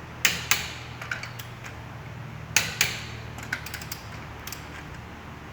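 Click-type torque wrench clicking as a car's wheel bolts are tightened to torque in sequence: sharp clicks in close pairs near the start and again about two and a half seconds in, then a few lighter clicks. A low steady hum runs underneath.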